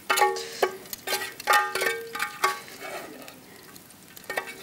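Metal utensil clinking against a frying pan, several sharp strikes that each ring briefly, over the faint sizzle of chicken frying.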